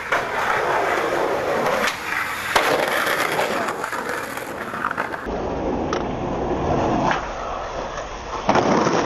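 Skateboard wheels rolling over concrete, broken by several sharp clacks of the board hitting the pavement, the loudest about two and a half seconds in.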